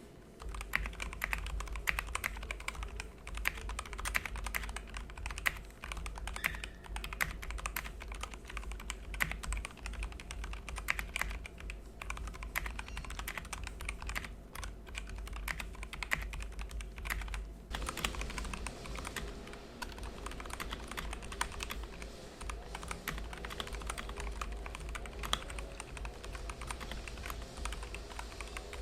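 Typing on a mechanical keyboard fitted with white Redragon PBT keycaps: a continuous rapid stream of keystroke clicks.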